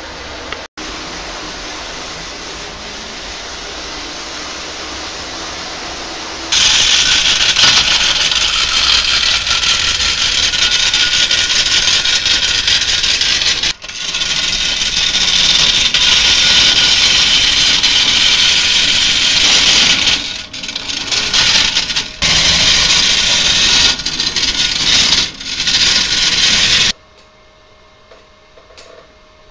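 Gauge 0 clockwork cog-railway toy locomotive running: a loud, steady mechanical rattle of its wind-up motor and gears on the rack track, starting about a quarter of the way in, faltering briefly a few times and stopping suddenly near the end. Before it there is only a steady hiss.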